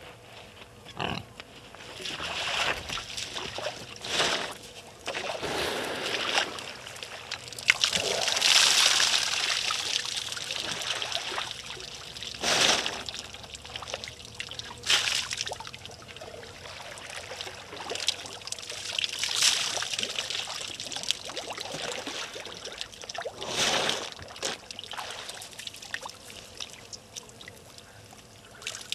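Water splashing and trickling in repeated spells a few seconds apart, stirred by an African elephant drinking with its trunk and a hippo moving in the waterhole.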